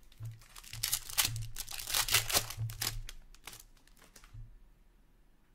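Crinkly wrapper of a hockey card pack being torn open and crumpled by hand. It makes a dense crackle that stops suddenly about four seconds in.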